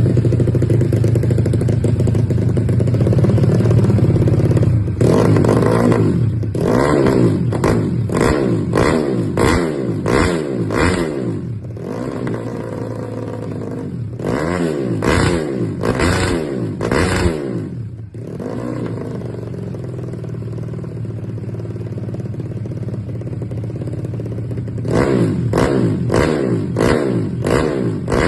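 Yamaha Jupiter Z underbone motorcycle's single-cylinder four-stroke engine being free-revved on the spot. It idles steadily and is then blipped in three bursts of quick rev-ups and drops, each burst about a second per blip, settling back to idle between bursts.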